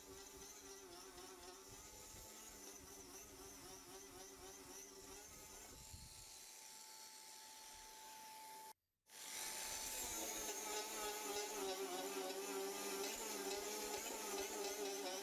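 Small handheld rotary sander with a sanding disc running with a steady buzzing whine while it sands a polyethylene weld bead flush. The sound breaks off for a moment about nine seconds in and comes back louder.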